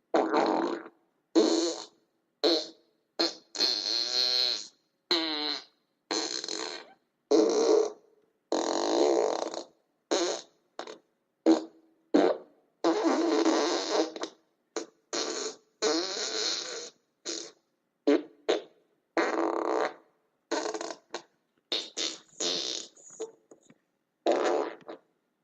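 A long run of short, buzzy, fart-like blasts, about one a second, some brief and some held for a second or more, wavering in pitch, each broken off by a moment of silence.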